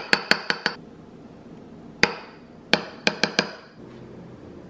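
Metal spoon tapping against a small ceramic dish, knocking thick Greek yogurt off the spoon: a quick run of about five clinks at the start, one more about two seconds in, and another run of five about three seconds in, each with a short high ring.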